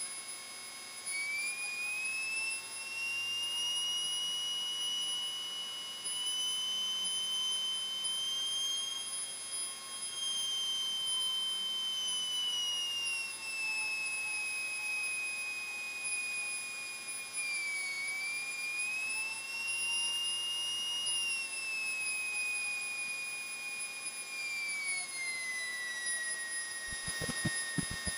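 Piper Cherokee 140's engine heard as a high whine in the cabin audio. Its pitch rises and falls as the throttle is adjusted on final approach, then sinks as power comes off for the flare. A few dull thumps near the end are the wheels touching down on the runway.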